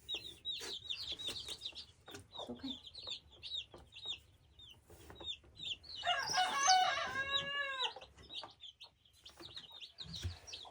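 Baby chicks peeping continuously in short, high, falling cheeps. About six seconds in, an adult chicken gives one long, loud call lasting about two seconds.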